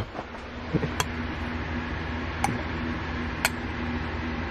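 A metal utensil clinking against a glass measuring cup as flake is stirred into liquid soft plastic: short sharp clicks about once a second, over a steady low hum.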